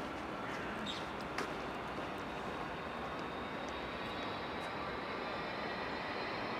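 Steady distant engine noise with a faint whine that slowly rises in pitch, and a single click about a second and a half in.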